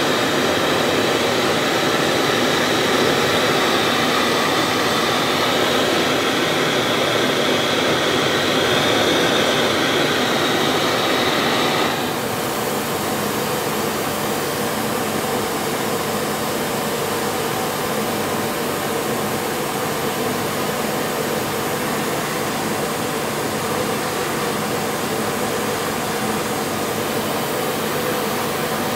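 Gas torch flame hissing steadily while heating a tank joint for silver soldering. About twelve seconds in it cuts off suddenly, leaving a quieter steady hum.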